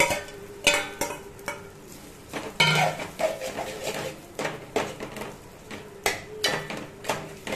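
A steel spoon stirring soaked sago pearls in hot oil in an aluminium pot, scraping and clinking irregularly against the pot, about once or twice a second, over a faint sizzle.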